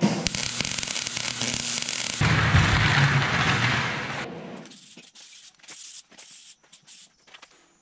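Welder crackling steadily as it lays a weld for about two seconds, then a loud steady hiss for about two seconds, then scattered light clicks and knocks.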